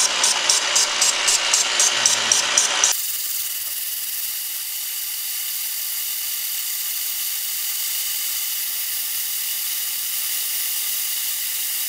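Cylinder boring bar running as it bores a Yamaha 701 cylinder sleeve out to its final 84 mm size. A rapid ticking, about four times a second, gives way suddenly about three seconds in to a steady whirring hiss as the cut carries on.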